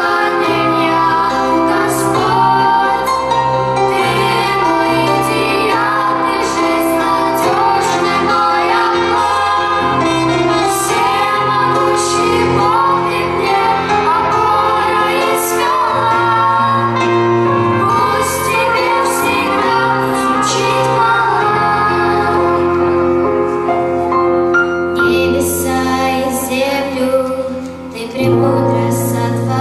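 A worship song: female voices singing over steady instrumental accompaniment, with a short dip in the music about three seconds before the end.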